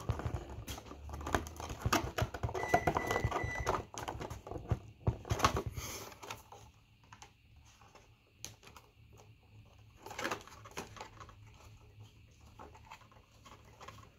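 Hands working a GoPro camera out of its cardboard insert and plastic mount: rustling cardboard and small plastic clicks, busy for the first half, then sparser and fainter.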